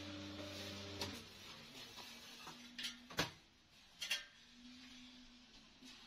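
Automatic rebar stirrup-bending machine humming steadily, stopping about a second in. A few sharp knocks follow, the loudest about three seconds in.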